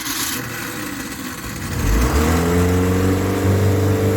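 Boat's Ford 2.3-litre four-cylinder inboard engine starting: after a couple of seconds of noise it catches, revs up and settles into a steady run.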